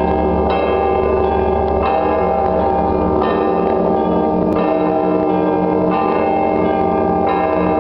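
Russian Orthodox church bells of Rostov Veliky ringing together: many bells sounding at once, with fresh strikes every second or two over the lasting hum of the larger bells.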